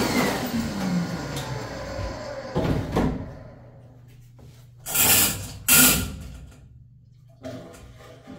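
Ridgid K-50 sectional drain machine's motor winding down with a falling pitch after being switched off, leaving a low steady hum. About five and six seconds in come two short, loud scuffs as a leather work glove is pulled back on, then a small knock.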